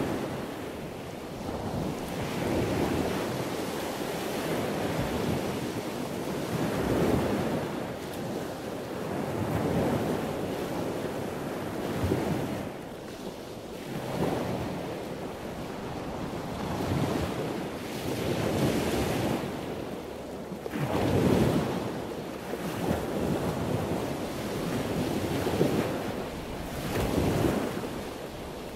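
Ocean surf washing onto a sandy beach in repeated swells, with wind gusting on the microphone in low rumbles.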